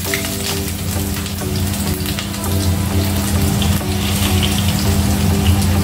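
Sliced onions sizzling and crackling in hot oil in a wok.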